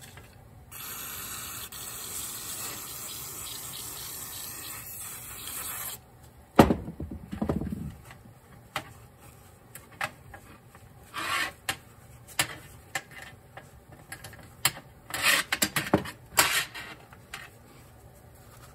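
Aerosol carburetor cleaner spraying in a steady hiss for about five seconds, then a loud knock and scattered clicks and rubbing as the carburetor body is handled and wiped with a rag.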